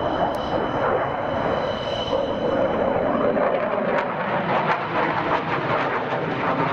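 JF-17 Thunder fighter's single Klimov RD-93 turbofan at high power as the jet flies a display manoeuvre: a steady, loud jet roar with a thin high whine, turning crackly from about four seconds in.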